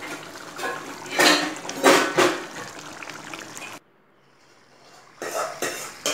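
Thick mushroom and coconut gravy bubbling in a steel pot on a gas stove, with irregular plops and gurgles as it boils. The loudest plops come in the first two seconds or so, and the sound drops out for about a second and a half past the middle.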